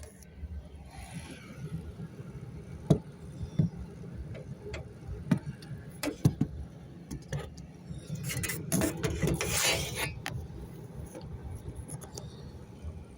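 Handling noise: scattered sharp clicks and knocks, with a stretch of scraping and rustling about eight to ten seconds in.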